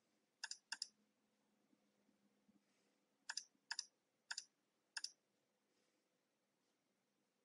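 Computer mouse button clicks, short and sharp: two about half a second in, then four more in quick succession between about three and five seconds in.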